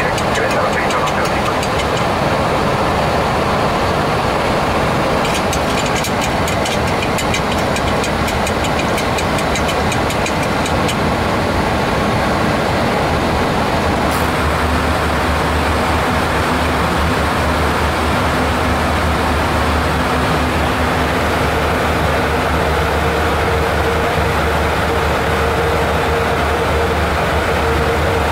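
Steady rushing cabin noise of a Boeing 737 flight deck in flight. About halfway through, the noise shifts and a steady low hum with a couple of faint steady tones joins it.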